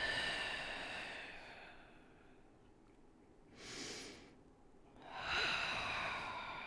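A woman breathing hard through a Pilates stretch: a long breath out fading over the first two seconds, a short sharp breath about four seconds in, then another long breath out from about five seconds.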